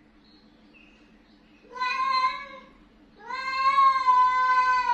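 Angry domestic cat yowling at another cat: a shorter drawn-out call about two seconds in, then a longer one held about two seconds, both at a fairly steady pitch.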